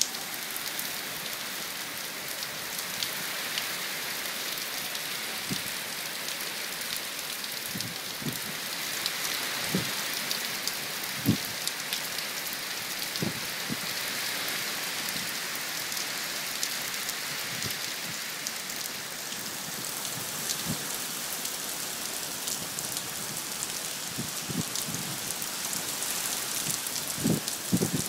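Heavy rain falling on a wet street and pavement ahead of a hurricane, a steady hiss of rain. A few dull thumps are scattered through it, the loudest about eleven seconds in and a cluster near the end.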